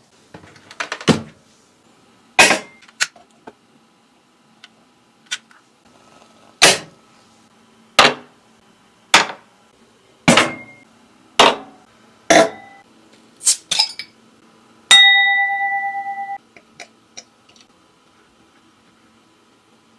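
A series of sharp clinks and knocks, roughly one a second, then a single ringing ding a little after the middle that fades over about a second and a half.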